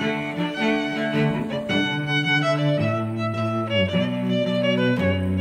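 Background music: slow, held chords that change about once a second over a moving bass line.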